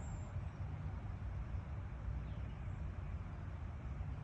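Outdoor background noise: a steady low rumble with no distinct event.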